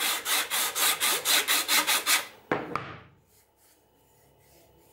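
80-grit sanding belt on a 3D-printed sanding bow rasping back and forth over a plastic screwdriver handle in quick, even strokes, about five a second. The belt is too coarse for the job. The strokes stop a little after two seconds, followed by a couple of sharp knocks.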